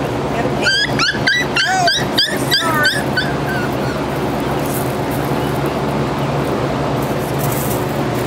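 Puppy yipping and whimpering in a quick run of about ten short, high cries that bend in pitch, stopping about three seconds in. A steady low hum runs underneath.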